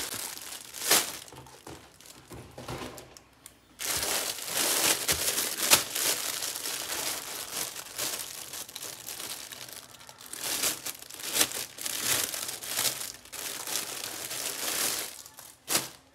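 Clear plastic packaging bag crinkling as it is handled and pulled about around a folded camouflage vest. Sparse crackles for the first few seconds, then a louder, continuous crinkling, with one sharp crackle near the end.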